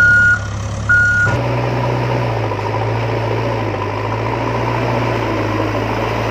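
Heavy vehicle engine running steadily, with two short reversing beeps in the first second and a half; the engine note shifts slightly just after the second beep.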